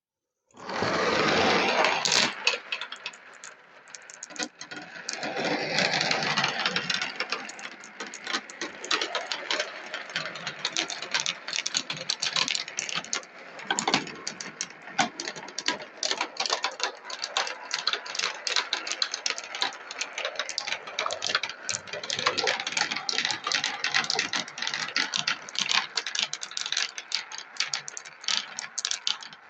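A pack of 16 mm marbles rolling and clattering down a marble run: a dense, rapid rattle of small clicks that starts suddenly about half a second in, loudest in the first couple of seconds.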